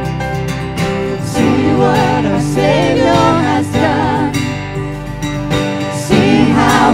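Live worship band playing a contemporary Christian song, with strummed acoustic guitar, keyboard and bass under it. A group of singers comes in together about a second and a half in, and the band and voices swell louder near the end.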